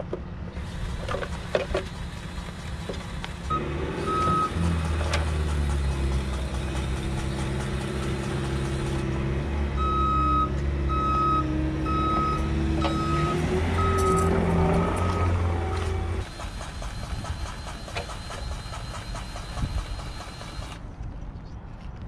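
A vehicle's engine running while its backup alarm beeps at an even rate, about three beeps every two seconds, from a truck or machine reversing. The engine stops suddenly about three-quarters of the way through.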